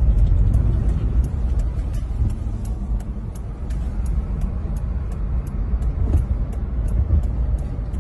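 Steady low road rumble of a moving car heard from inside the cabin, with faint, even ticks about three times a second.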